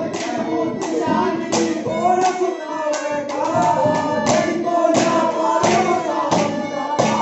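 Haryanvi ragni folk music: a wavering melody line over steady drum beats, several strokes a second.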